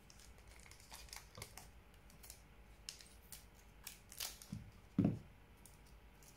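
Foil Pokémon TCG booster pack being handled and opened: the wrapper crinkles and the cards tick and rustle in short, sharp clicks, with one louder dull thump about five seconds in.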